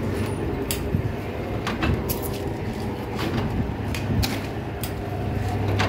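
Automatic two-line cup sealer and filler machine running: a steady low motor hum with sharp mechanical clacks at irregular intervals, about one or two a second, from its mechanism.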